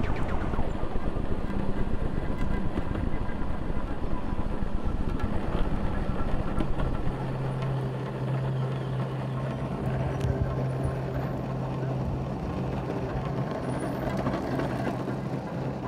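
Longboard wheels rolling over an asphalt path: a steady coarse rumble. About seven seconds in, as the board moves onto a smoother surface, it becomes quieter, leaving a steady low hum.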